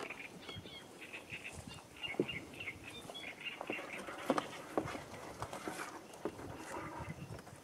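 Animal calls: short, high notes repeated several times a second in runs, with scattered soft clicks and knocks.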